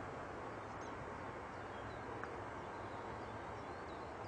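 Steady, faint background hiss with a low hum underneath, with no voice on the radio channel.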